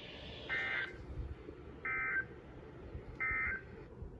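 Three short bursts of NOAA Weather Radio SAME digital data tones, a buzzy two-tone warble repeated a little over a second apart over faint radio hiss: the end-of-message signal that closes the required weekly test broadcast.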